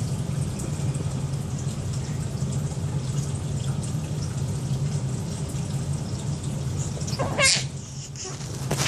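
Steady rushing background noise with a low hum under it, and one short noisy burst about seven and a half seconds in.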